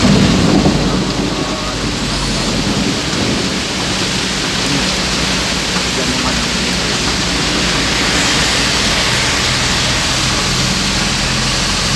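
Heavy rain pouring down steadily, heard from inside a car, with the engine's low hum beneath it and a louder low rumble in the first second.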